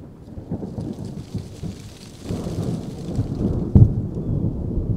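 A continuous low rumble with a rain-like crackle, like rain and rolling thunder, with one sharp thump a little before the end.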